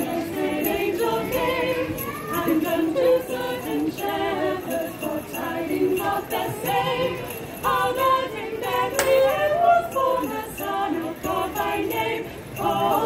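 A small group of women carol singers singing a Christmas carol together from songbooks, voices only.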